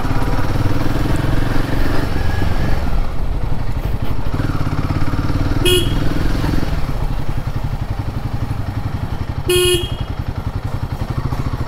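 Royal Enfield Himalayan 450's single-cylinder engine running steadily while the bike is ridden through slow city traffic. A vehicle horn toots twice, briefly about halfway through and a little longer near the end.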